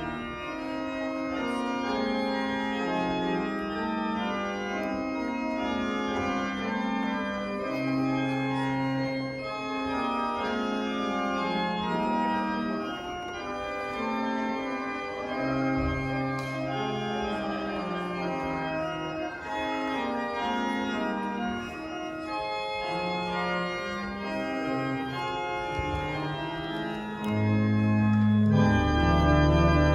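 Church organ playing a slow piece in full, sustained chords. Near the end, deep pedal notes come in and it grows louder.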